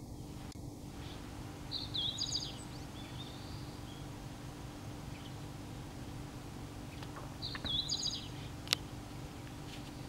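Meadow bunting (Emberiza cioides) singing: two short, fast, high song phrases about five seconds apart. A steady low hum runs underneath, and a single sharp click comes near the end.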